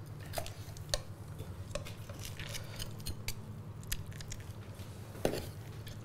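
Knife and metal tongs working on a roasted whole chicken on a wooden cutting board: scattered small clicks and taps, with one louder knock about five seconds in.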